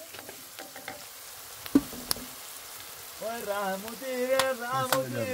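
Onions and greens frying in a pan with a low sizzle, a wooden spatula stirring and clicking, and one sharp knock about two seconds in. From about three seconds in, a person's voice comes in louder over the frying.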